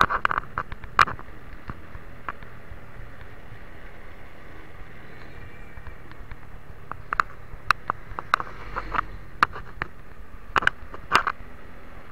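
Steady road and wind noise of a motorcycle ride, broken by sharp knocks and clicks: a few at the start, a scattered run in the second half, and two loud ones near the end.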